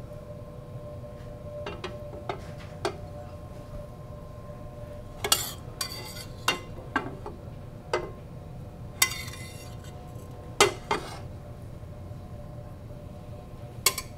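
Metal spoon clinking and scraping against a stainless steel skillet as fried shallots are scooped out and laid on toasts, about a dozen scattered clinks over a steady low background hum.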